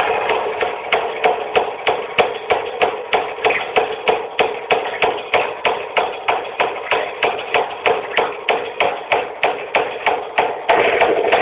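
Evenly spaced tapping, about three taps a second, over a steady hiss. Near the end the tapping stops and a steady noise carries on.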